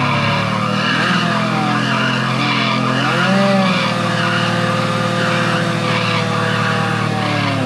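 Sport motorcycle doing a burnout: the engine held at high revs while the rear tyre spins and squeals, with the pitch wavering as the revs dip and rise, most clearly about three seconds in.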